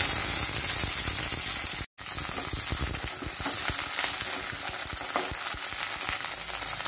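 Sliced onions, curry leaves and green chillies sizzling in hot oil with mustard seeds in a stainless steel kadai, a steady hiss with fine crackling, stirred with a wooden spatula. The sound cuts out for an instant about two seconds in.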